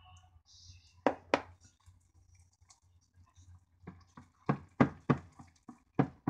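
Hands kneading and squeezing a wet ground-chicken mixture in a glass bowl. Two sharp squelches come about a second in, then from about four seconds a run of quick wet squelches and slaps, about three a second.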